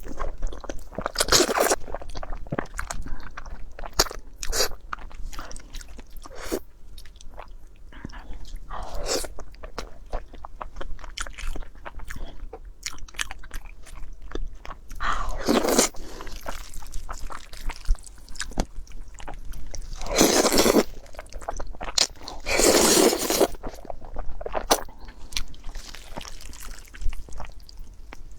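Close-up eating sounds: crunchy bites and chewing, with many small clicks and a few louder crunches about a second long.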